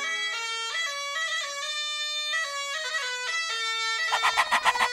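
Music: a bagpipe melody of stepped notes over a steady low drone. About four seconds in, it gives way to a fast run of short, sharp, rapidly repeated sounds.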